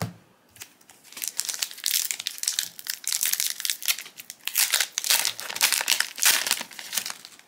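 Foil trading-card booster pack wrapper being torn open and crinkled between the fingers, a dense run of crinkling from about a second in.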